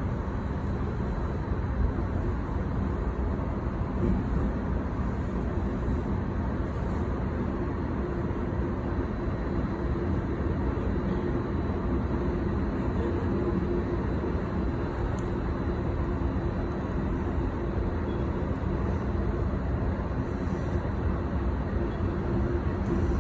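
Steady running noise inside a JR Utsunomiya Line electric train carriage: a continuous low rumble with a faint steady hum.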